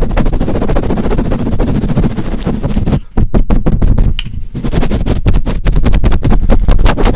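A brush worked fast and hard against a microphone: a loud, dense scratchy rustle, breaking into quick separate strokes a few seconds in and again near the end.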